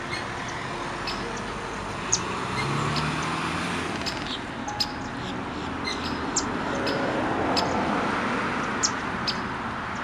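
Steady wash of distant road traffic, with short, high chirps from small birds every second or so.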